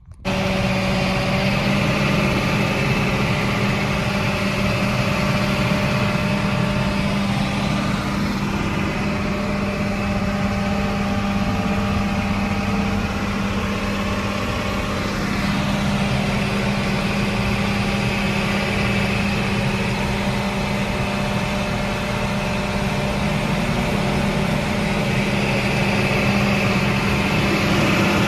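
John Deere self-propelled sprayer running as it drives through a cotton field, heard inside its cab: a steady engine drone with a strong low hum.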